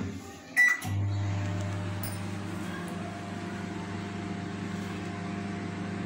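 LG microwave oven: a short keypad beep with clicks about half a second in, then the oven starts up and runs with a steady low mains hum, heating a glass bowl of water on the turntable.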